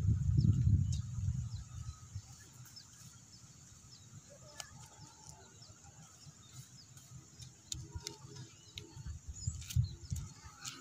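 Quiet outdoor ambience with faint, brief bird chirps and scattered light clicks, after a low rumble in the first second or so.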